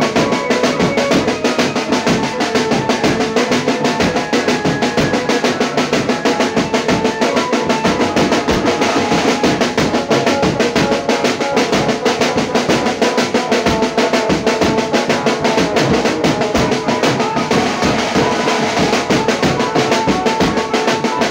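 Live banjo-party band music: fast, dense drumming with snare rolls under a keyboard melody, loud and steady throughout.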